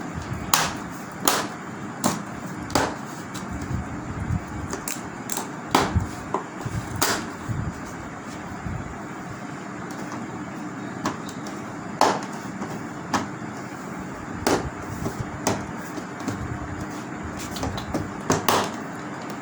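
Plastic front bezel of a 32-inch LED TV being pressed onto the set, its snap-fit locks clicking into place one after another at uneven intervals, over a steady background noise.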